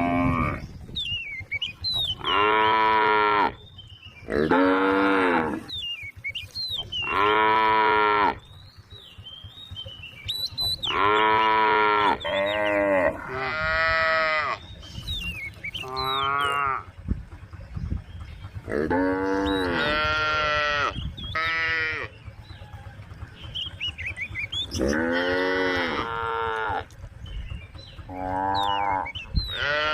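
Several cattle mooing over and over in long, drawn-out calls every few seconds, now and then two cows at once. Small birds chirp faintly between the calls.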